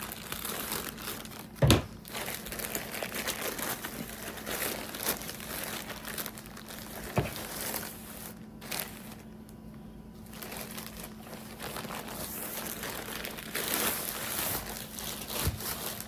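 Packaging crinkling as it is handled and opened, with a single thump a couple of seconds in.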